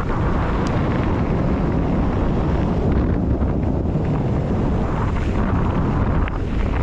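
Wind rushing over a GoPro's microphone on a fast downhill mountain-bike run, with the low rumble of the bike over rough dirt trail and a few small knocks and rattles.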